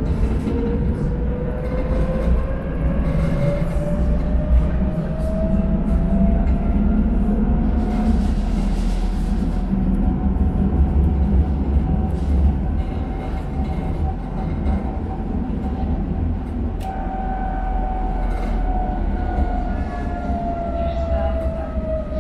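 Electric tram's traction motors whining, rising in pitch as it accelerates, holding steady while it cruises, then falling as it slows near the end. Underneath is the low rumble of wheels on the rails, with scattered clicks.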